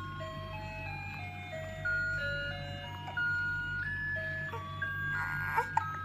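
A simple chiming tune played one pure note at a time, like a music box, over a low steady hum. About five seconds in there is a short noisy sound with two sharp clicks.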